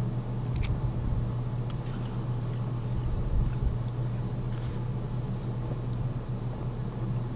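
Boat engine running steadily: a low, even drone, with a few small clicks.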